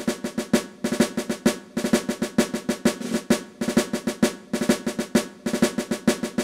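Intro music of snare drumming: fast runs of strokes in short repeated phrases with brief gaps between them.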